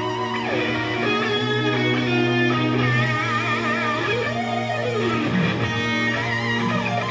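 Live heavy-metal band playing a slow lead passage: a Stratocaster electric guitar through Marshall amps plays a melodic lead with wide vibrato and sweeping pitch bends over sustained keyboard and bass notes.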